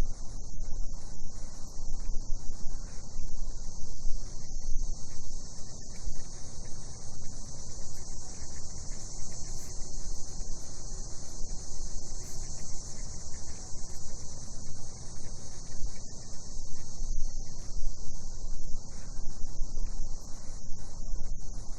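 Cicadas singing in a steady, unbroken high-pitched drone, over a low, uneven background rumble.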